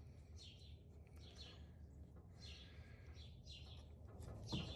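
Faint bird calls: a short falling chirp repeated about once a second, with a light knock near the end.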